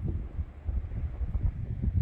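Storm wind buffeting the microphone: an irregular, gusting low rumble.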